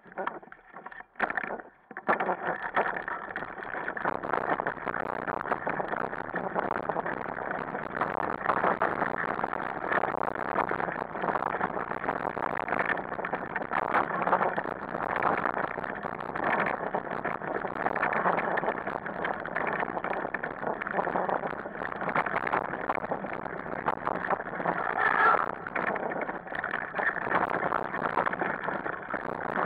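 Steady rumble and rattle of a dog-drawn wheeled rig rolling fast over a bumpy dirt forest trail, heard through a camera mounted at the handlebar. It starts about two seconds in.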